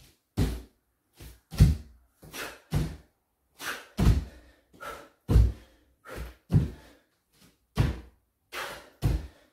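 Bare feet landing repeated squat jumps on a wooden floor: a heavy thud about every second and a quarter, with lighter thumps in between.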